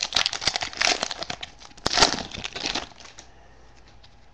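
A 2011 Topps Prime football card pack wrapper crinkling and tearing as it is opened, full of sharp crackles; the crinkling stops about three seconds in.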